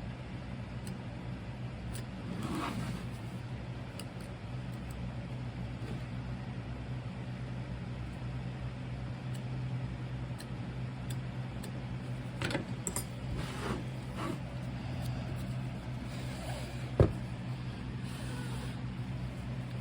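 A tool scraping and cutting sprue channels into packed casting sand in short strokes, over a steady low electrical hum from the running Toauto melting furnace. A single sharp knock comes about seventeen seconds in.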